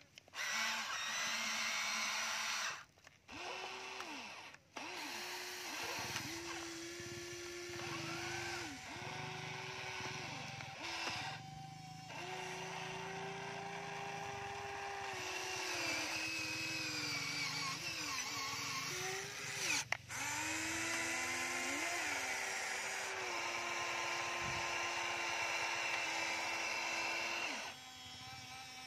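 Electric motors and gearboxes of a Huina radio-controlled toy excavator whining in short runs of one to three seconds as the boom, bucket and turntable move in turn while digging soil. Each run's pitch slides up as the motion starts and down as it stops.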